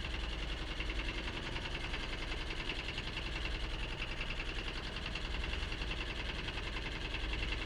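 Small fishing boat's engine running steadily under way, with a fast, even mechanical pulsing.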